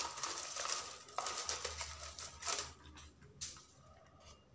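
Honeycomb kraft-paper packing wrap rustling and crinkling as it is handled, dying away after about two and a half seconds, with a single light tap about three and a half seconds in.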